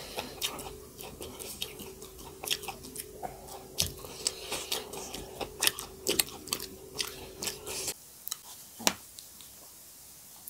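Close-miked chewing: quick, sharp wet lip-smacks and mouth clicks of people eating, dense for about eight seconds, then only a few. A steady background hum stops suddenly about eight seconds in.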